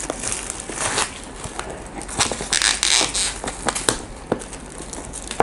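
A cardboard box and its plastic wrapping being torn, scraped and cut open, with noisy swishes and a few sharp clicks.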